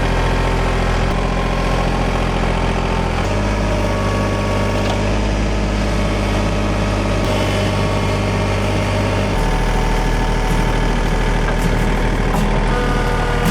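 Tractor engine running steadily, its pitch stepping up and down a few times as the throttle or load changes.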